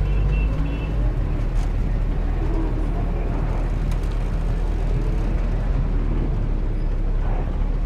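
Street traffic: car engines running and passing, a steady low rumble without a break.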